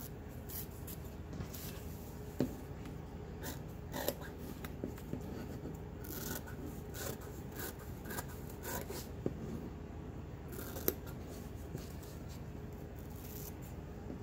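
Fabric scissors snipping through a sheet of stabilizer: an irregular run of short cuts as the blades work their way around the edge.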